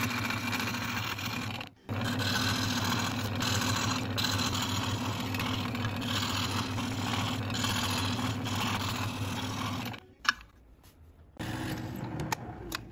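Scroll saw running with a steady buzz as its blade cuts wooden gear blanks, with a brief break about two seconds in; it stops with a click about ten seconds in. Near the end a drill starts boring through the gear blanks.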